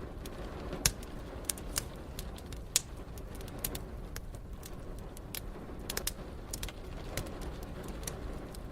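Wood fire crackling in a fireplace, with irregular sharp pops, the loudest about a second in and near three seconds, over a steady hiss of rain.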